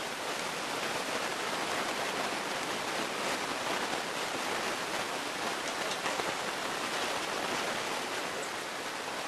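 A steady, even hiss with no clear events in it.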